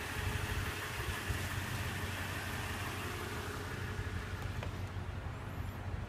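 A vehicle engine idling steadily with a low hum.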